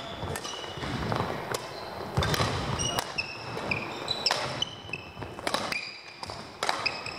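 Badminton play in a large sports hall: rackets striking shuttlecocks in sharp, irregular cracks, with short high squeaks of court shoes on the floor between them.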